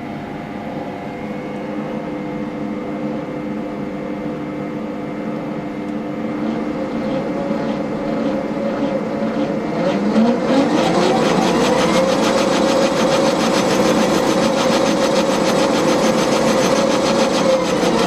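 Sieg C6 lathe running on its DC motor and speed control. It first turns slowly with a steady whine, then about ten seconds in it speeds up, the pitch rising and the sound growing louder, and it holds steady at the higher speed.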